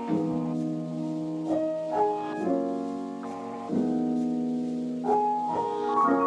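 Slow background piano music: soft chords held and changed every second or so.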